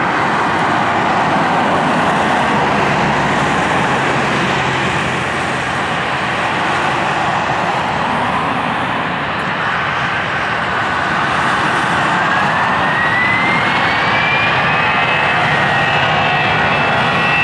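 Airbus A320 jet engines running with a loud, steady roar, joined about halfway through by a whine that climbs in pitch and then holds as the engines spool up for the takeoff roll.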